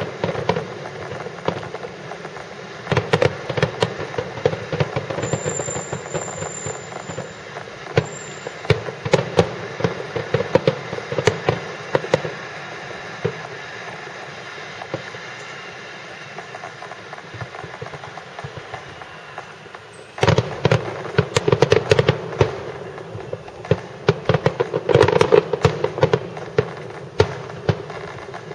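Fireworks bursting in a dense run of overlapping bangs and crackles from aerial shells and low-level volleys. The bangs thin out and quieten through the middle, then a sudden louder, denser barrage sets in for the last third.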